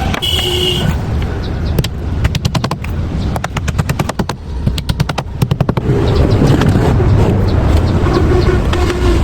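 A rapid series of sharp knocks, about ten a second, for around four seconds, then a steady low mechanical rumble.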